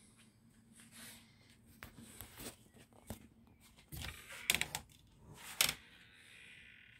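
A series of knocks, clicks and rustling handling sounds inside a small wooden camper interior, with two sharper, louder knocks about four and a half and five and a half seconds in.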